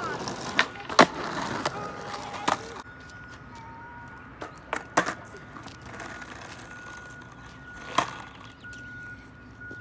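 Skateboard wheels rolling on asphalt, with sharp clacks of the board, busiest in the first three seconds. After that come single clacks about five and eight seconds in, over a faint, high, on-and-off beeping like a reversing vehicle's alarm.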